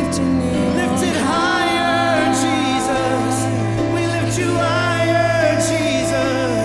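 Live church worship music: singers holding and gliding through a slow melody over a band with a sustained low bass note.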